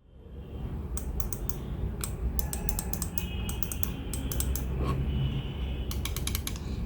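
Razer Viper Ultimate gaming mouse buttons clicking, with its optical switches. The clicks come in quick bursts of several, a short pause between bursts.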